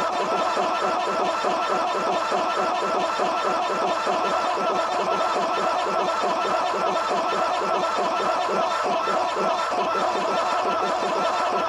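Creepy ambience loop: a dense, unbroken texture of many overlapping chattering, laugh-like voice sounds that never pause.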